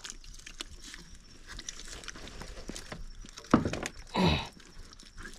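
Wet mangrove mud squelching and crackling as a hand digs into a mud crab's burrow, with scattered small clicks. A sharp knock comes about three and a half seconds in, followed by a short grunt that falls in pitch.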